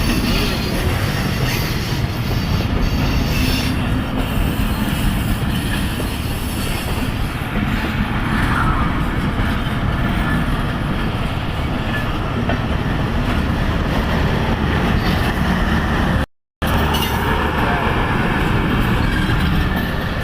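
Train rolling past at close range: a steady loud rumble of wagons on the rails. The sound cuts out completely for a moment about sixteen seconds in, then resumes.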